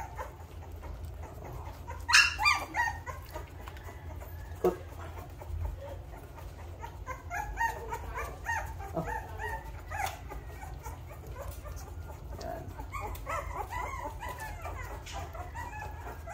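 Three-week-old American bully puppies whimpering and squealing while being hand-fed raw meat. The loudest burst of high cries comes about two seconds in, followed later by many short squeaks.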